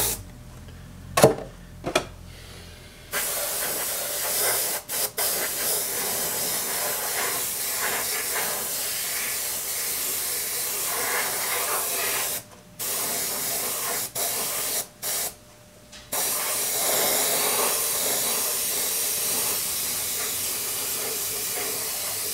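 Airbrush spraying paint: a steady hiss of air and paint that starts about three seconds in and is broken by a few brief pauses. It is laying on a light first coat of the main colour. Two sharp clicks come before the spraying starts.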